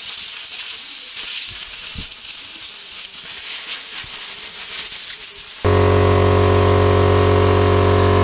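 Compressed-air blow gun hissing steadily as dirt is blown out of a motocross boot's sole, with a few small clicks, cutting off suddenly about five and a half seconds in. A steady held music chord follows.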